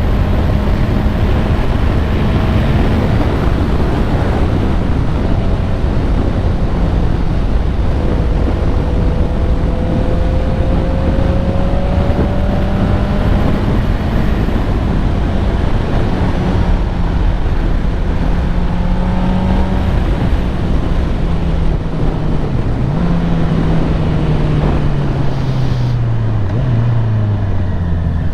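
Honda CBR650R's inline-four engine with an Akrapovic exhaust running at steady revs while riding, over a heavy rush of wind and road noise. Over the last few seconds the engine note falls as the revs drop.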